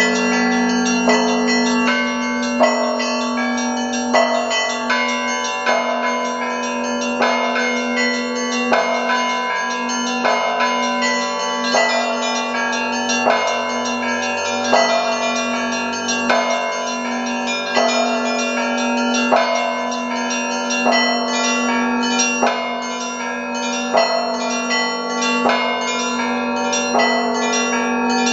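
Russian church bell ringing (zvon): a set of hand-rung bells of many pitches keeps up a dense, repeating pattern, with a stronger stroke about every second and a half over a continuous low hum from a large bell.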